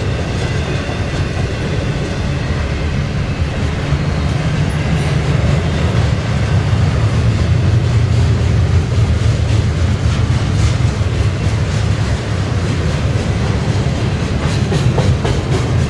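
Double-stack intermodal container train rolling past: a steady low rumble of well-car wheels on the rails, with light clicking of wheels over rail joints that becomes more distinct in the second half.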